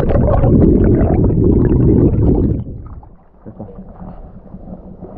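River water swirling against a submerged camera and its microphone: a loud, muffled rumbling and gurgling for about two and a half seconds, then much quieter once the camera is at the surface.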